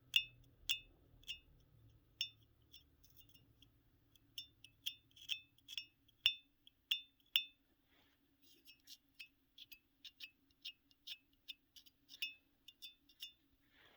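A piece of palladium metal, with a former muffin tin welded to it, struck over and over. Each tap gives a short, bright, bell-like ring at two high pitches. The taps come in uneven runs, with a brief pause a little past halfway.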